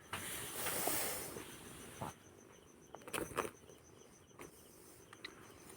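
A high, evenly pulsing insect chirp, cricket-like, runs steadily throughout. Under it are a burst of rustling in the first second or so and a few short soft clicks around two and three seconds in.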